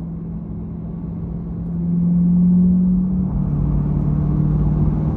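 Car engine running with a steady drone over low rumble. It swells around two seconds in, then settles at a slightly lower pitch just after three seconds.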